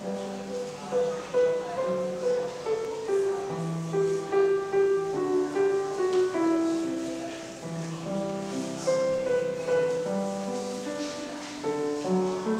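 A Cristofori grand piano starts playing right at the opening: a flowing right-hand melody over lower left-hand bass notes, at a moderate, even pace.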